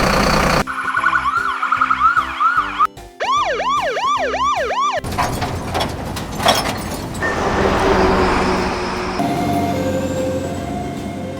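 Siren sound effects: quick repeated wailing sweeps up and down in pitch, growing wider and faster a few seconds in. A loud, rough, noisy stretch follows about halfway through.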